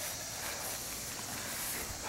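Steady low hiss of background noise, with no distinct sound standing out.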